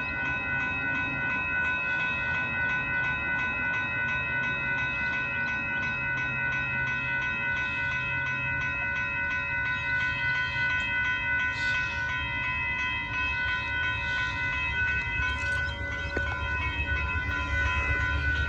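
Northbound Amtrak Texas Eagle passenger train approaching a road crossing. Steady high warning tones run throughout, and the train's low rumble grows louder near the end.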